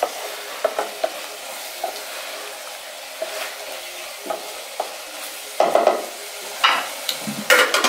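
Wooden spoon stirring and knocking in an aluminium saucepan of silverfish (omena) simmering on the stove, over a steady hiss from the pot. A few louder scrapes come in the last couple of seconds.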